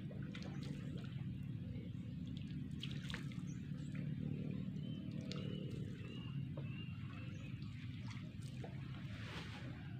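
Open-water ambience on a reservoir: a steady low rumble, with short high bird chirps repeating several times through it.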